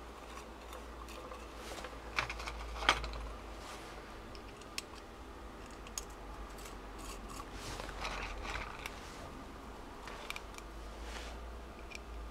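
Small metal screws and the metal ignition housing handled by hand while the mounting screws are fitted: scattered light clicks and taps, with two sharper clicks about two to three seconds in and rustling handling noise around eight and eleven seconds.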